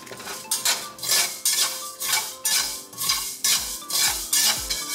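Spatula scraping and stirring dry glutinous rice grains around a bare wok, in quick repeated strokes about two to three a second: the rice is being dry-roasted to make roasted rice powder.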